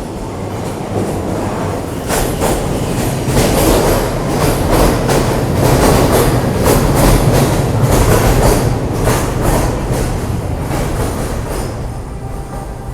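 Scarborough RT light-metro train, driven by linear induction motors, running along its track: a steady rumble with the wheels clicking in an uneven rhythm, loudest in the middle and easing off near the end.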